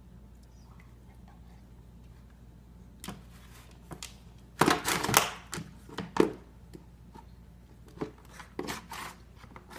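Beagles scrabbling in a hard plastic laundry basket: a series of short knocks, clatters and scrapes of claws and bodies against the plastic. It starts about three seconds in, is loudest around five seconds, and picks up again near the end as one dog climbs in.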